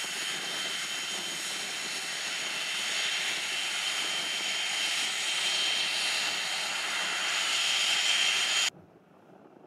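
Cessna Citation Excel business jet taxiing, its twin Pratt & Whitney Canada PW545-series turbofans giving a steady high whine over a rushing hiss that grows louder as it passes. The sound cuts off abruptly near the end.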